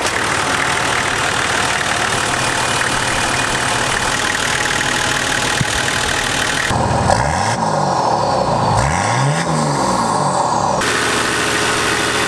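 Nissan Patrol TD42 six-cylinder diesel engine running, revved up and back down twice in the middle, as it circulates freshly added coolant to push air bubbles out of the cooling system.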